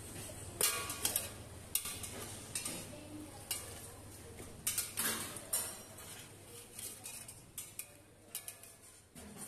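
Wire-mesh spider skimmer clinking against the rim and sides of a steel stockpot as food is stirred and scooped from steaming liquid, a dozen or so sharp separate clinks. A steady low hum runs underneath.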